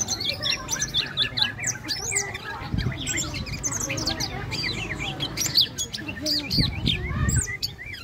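A caged cungkok songbird singing a dense, unbroken stream of quick chirps and whistles in full voice.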